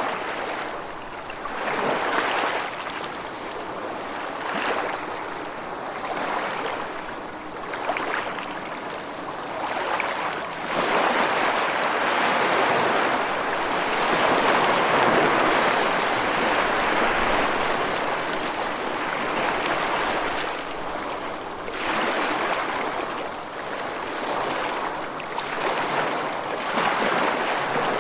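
Rushing water: a steady hiss that swells and eases every few seconds, with a longer, louder surge through the middle.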